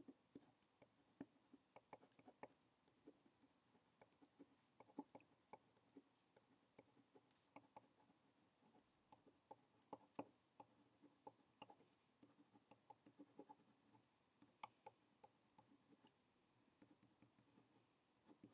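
Faint, irregular scratches and taps of a pen writing on a sheet of paper, against near-silent room tone.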